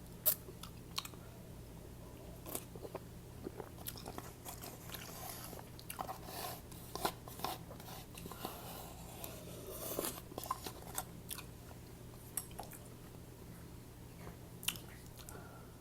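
Close-miked wet chewing and slurping of noodles: irregular smacks and clicks, with a few longer slurps about six to seven seconds in and around ten seconds.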